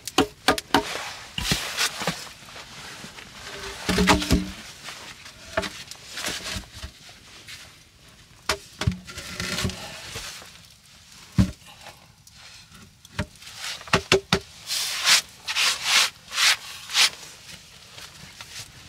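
Wood being handled: pieces of wood knocking against each other at irregular intervals, with a few rubbing, scraping strokes near the end.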